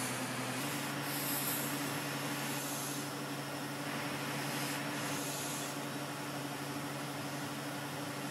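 A steady low machine hum over an even hiss, stepping up slightly in pitch about half a second in, with a few brief hissing swells.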